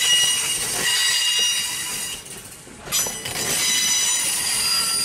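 Excursion coaches' steel wheels squealing as the train is pushed slowly past by a backing steam locomotive, several shrill high tones at once over the rolling rumble. The sound drops away briefly just after two seconds in and comes back suddenly about a second later.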